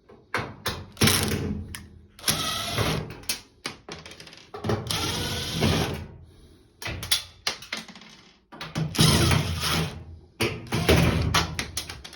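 Power screwdriver running in about seven short bursts, backing out the screws that hold a washing machine's top and back panels.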